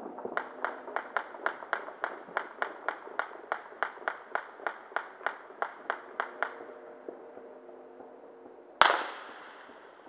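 A rapid, evenly spaced string of distant sharp bangs, about four a second for six seconds, then a pause and one much louder, closer bang whose echo fades over about a second: New Year's midnight shooting or fireworks in the neighbourhood.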